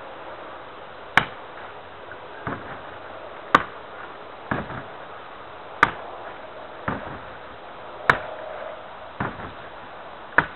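Hand strikes landing on a heavy punching bag: a loud, sharp smack followed about a second later by a softer, duller hit, the pair repeated about every two seconds, five times.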